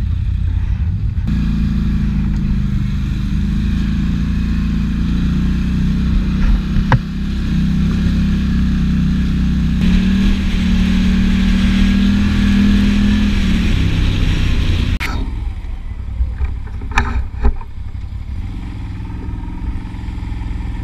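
ATV (quad bike) engine running steadily while the quad is ridden over a dirt track, a constant drone over a heavy low rumble. About fifteen seconds in it drops to a quieter level, with a few sharp knocks.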